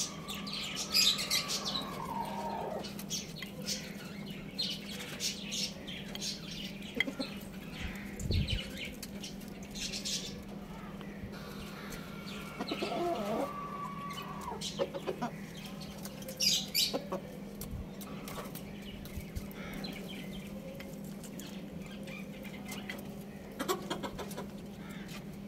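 Rooster and hen pecking rice from a clay dish, beaks tapping in irregular sharp clicks, with clucking. Two drawn-out chicken calls stand out, one at the start trailing off after about two seconds and another about halfway through.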